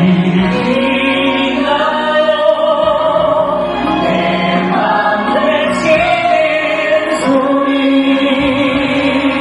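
A song being sung over musical accompaniment, with long held notes that waver in pitch.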